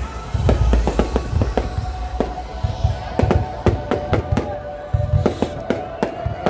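Fireworks going off in quick succession: many sharp cracks several a second, with low rumbling booms between them, over music.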